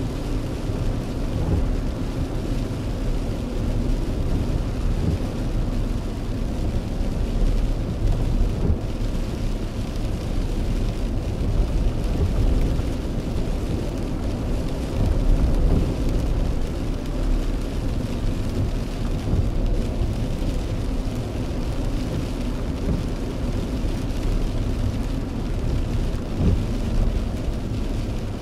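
A car driving on a wet road in rain, heard from inside the cabin: a steady, deep rumble of tyres and engine with a lighter hiss of rain over it.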